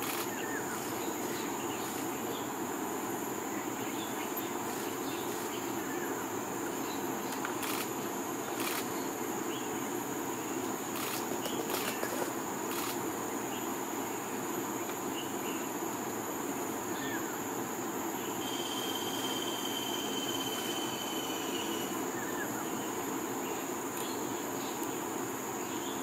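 Tropical forest ambience: a steady high-pitched insect drone over a low steady hum, with a few faint short chirps and, past the middle, a thin steady whistle lasting a few seconds.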